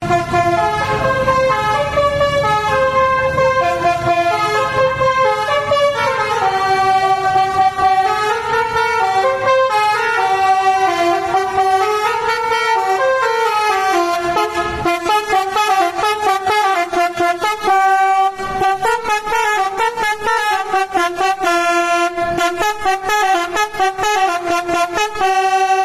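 Twelve-trumpet 'basuri' telolet musical air horn on a bus playing a tune in changing notes. The first half has held and sliding notes, and from about halfway the notes come quicker and shorter.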